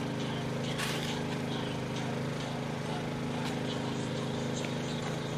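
A steady, even mechanical hum of unchanging pitch, like a motor running, with faint scattered clicks and a sharper click about a second in.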